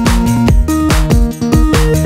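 Electronic dance music with a steady four-on-the-floor kick drum, a pulsing synth bass line and synth chords.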